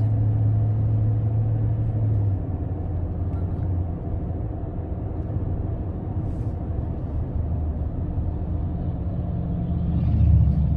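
A Toyota car's engine and road noise heard from inside the cabin while driving. It is a steady low hum whose pitch drops about two seconds in, drops again a little later, and rises near the end as the engine speed changes.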